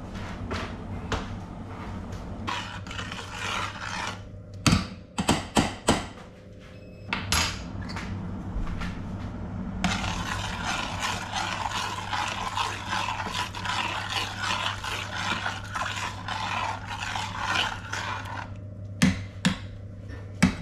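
A metal spoon stirs thickening sauce in a stainless steel saucepan, scraping round the pan, as a cornflour-and-water mix is stirred in. There are a few sharp knocks against the pot about five seconds in and again near the end. A low steady hum runs underneath.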